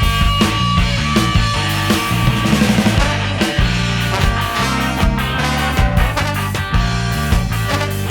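Live band playing an up-tempo instrumental passage: electric guitar, bass and drums, with a steady beat and sustained melody notes over a driving bass line.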